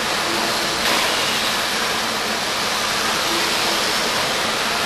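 Steady wash of noise from electric radio-controlled off-road buggies racing on the track, their motor whine and tyre noise blending together, with a few faint short tones rising out of it.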